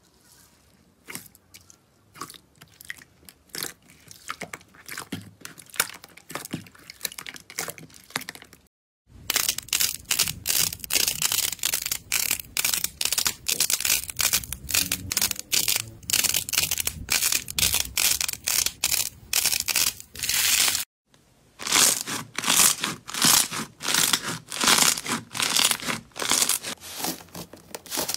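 Slime being handled by hand, crackling in three stretches split by two brief gaps. It starts faint as a hand presses green clear slime packed with small beads. It turns louder and denser about nine seconds in as yellow slime is pulled and squeezed, and stays loud with many crackles a second about twenty-one seconds in as hands press blue slime.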